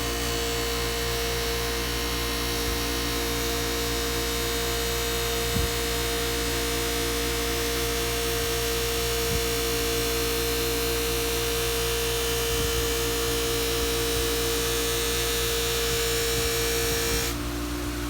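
Bench buffer running steadily with a hum while the steel edge of a draw knife is worked against a wheel charged with black polish. The buffing sound and its higher tone stop about a second before the end, leaving the lower motor hum.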